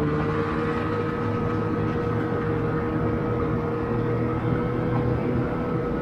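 Snowmobile two-stroke engine running steadily at a moderate trail speed, its pitch rising very slightly.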